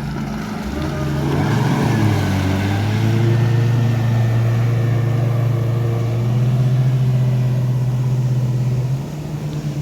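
Supercharged four-stroke jet ski engine pulling away under throttle. Its pitch rises over the first few seconds, holds a steady drone, and eases off near the end.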